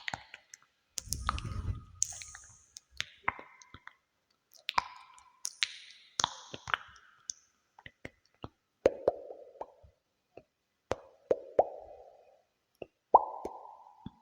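Irregular sharp plops and clicks, about one or two a second, each trailing a short echoing ring that slides down in pitch: ASMR trigger sounds with a cave-like echo effect.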